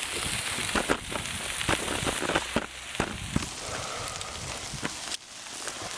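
Smash burger patties and onions sizzling on a Blackstone steel propane griddle: a steady frying hiss with scattered crackles and pops of spattering fat.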